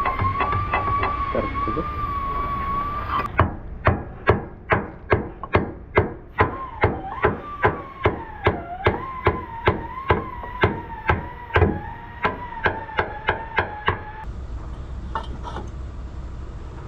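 Rapid hammer blows, about three a second, starting about three seconds in and stopping about fourteen seconds in, over a steady high whine that wavers a little in pitch.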